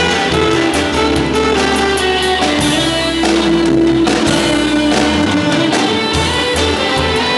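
A band playing music live, with guitar over a strong bass line and a steady drum beat.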